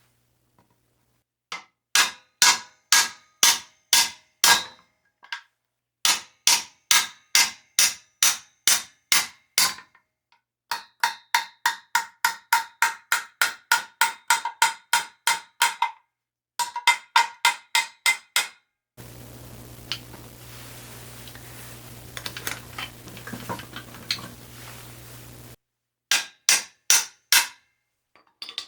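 Repeated ringing hammer blows on metal, driving the crankshaft out of the cast-iron air compressor pump. The blows come in runs of two to three a second, one run quicker. About two-thirds of the way in, a steady hum with scattered clicks takes over for several seconds before a last short run of blows.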